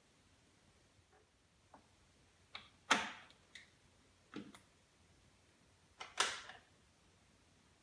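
A handful of irregular clicks and knocks over faint room tone, the two loudest about three and six seconds in, each with a short decay.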